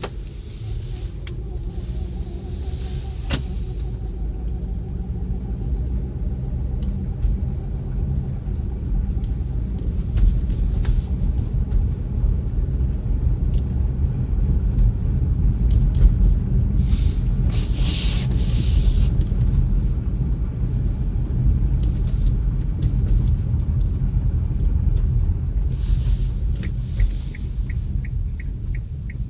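2014 Kia Sportage 3 driving, with a steady low rumble and a faint wavering squeak over roughly the first ten seconds. This is the cold-weather squeak that appears when setting off in frost below −10 °C and stops above about 20 km/h. A regular light ticking starts near the end.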